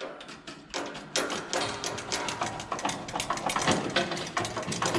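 Rapid metal-on-metal tapping as the inner race of a worn roller bearing on a John Deere 568 round baler is chipped away. A few taps at first, then several a second from about a second in.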